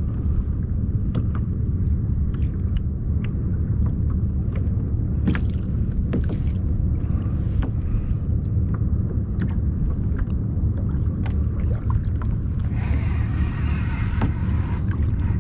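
Steady low rumble of wind buffeting the camera microphone on a kayak at sea, with light scattered clicks and knocks from the boat and water against the hull. A brighter hiss joins near the end.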